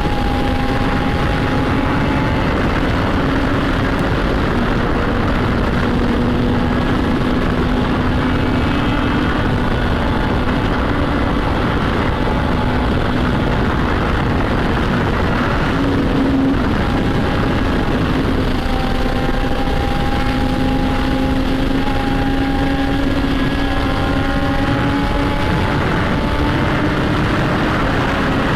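Motorcycle engine and exhaust running at a steady cruise, the pitch drifting only slightly, under heavy wind noise on the microphone.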